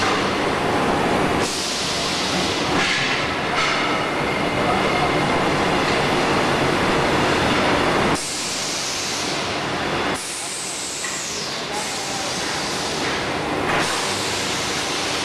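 Motorcycle wheel rim roll forming machine running: a loud, steady mechanical din from the forming rollers that changes abruptly several times, with a brief high falling whine about two-thirds of the way through.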